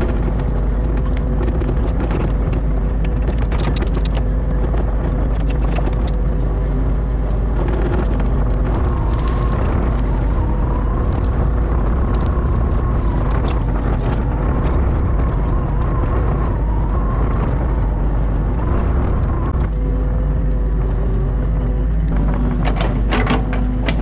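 Excavator's diesel engine running steadily, heard from inside the cab as the machine works its way through grass. A higher whine wavers over it in the middle stretch, and a few sharp clicks and knocks come near the end.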